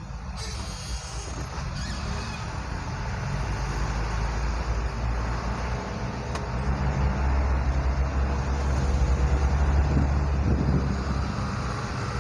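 Diesel delivery truck engine running in heavy, slow traffic under steady road noise. The low engine drone swells from about four seconds in and eases near the end, and a brief hiss comes near the start.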